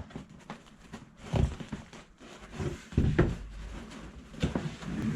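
Cardboard box being handled and opened: several dull bumps and scrapes of cardboard, the loudest about three seconds in.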